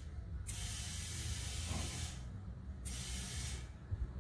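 Compressed air hissing in two bursts at the valve stem of a Massey Ferguson TO35 rear tractor tire while its pressure is set to 12 psi: one of about a second and a half, then a shorter one, with brief pauses between them.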